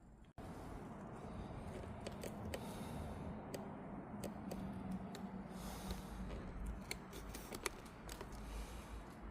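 Light metallic clicks and taps of scooter brake parts and hand tools being handled, scattered irregularly over a steady low background hum.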